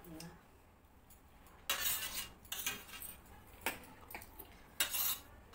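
A metal spoon scraping and clinking on a stainless steel plate, scooping up the last of the food, in several short strokes starting about a second and a half in.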